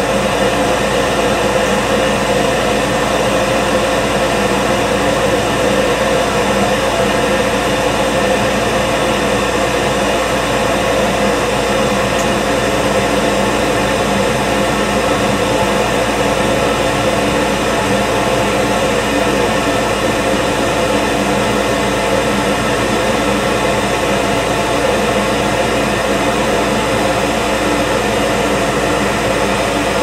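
York gas furnace firing: the inducer draft blower motor running steadily together with the lit gas burners, a constant whooshing hum with steady tones through it.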